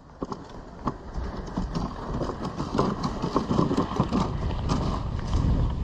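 Runners of a Risdon Euro Spring dog sled sliding and crunching over snow while two dogs pull it: a rough scraping noise with scattered clicks and knocks, growing louder about a second in.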